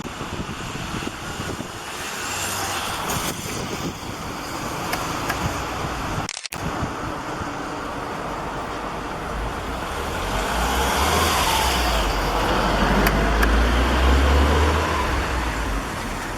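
Steady rumbling outdoor background noise, like road traffic, that grows louder in the second half, with a brief dropout about six seconds in.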